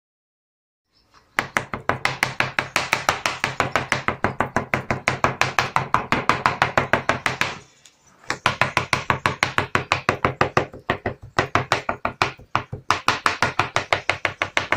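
Kitchen knife finely chopping herring fillet on a plastic cutting board: quick, even strokes, about six a second. The chopping starts after about a second of silence and stops briefly about halfway through.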